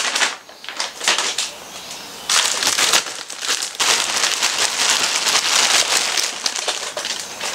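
Crinkling plastic snack packaging: a large plastic bag of individually wrapped chocolate sweets is handled and opened, and the wrapped pieces are poured out onto a pile of wrapped snacks. It goes quieter for a moment about half a second in and picks up again after about two seconds.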